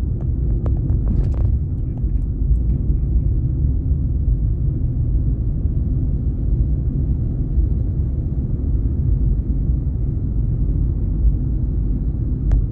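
Car driving along a city street: a steady low rumble of engine and tyre noise.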